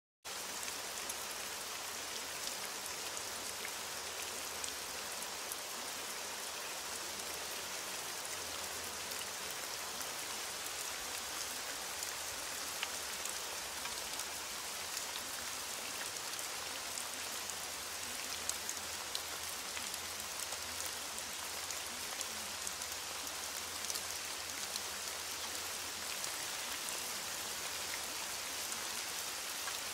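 Steady rain falling, an even hiss sprinkled with small drop ticks.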